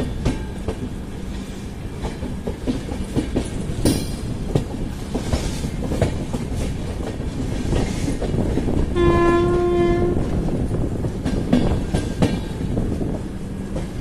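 Indian Railways express train running slowly into a station, its coach wheels clacking and knocking over rail joints and points under a steady rumble, heard close from the coach doorway. A train horn sounds once, about a second long, about nine seconds in.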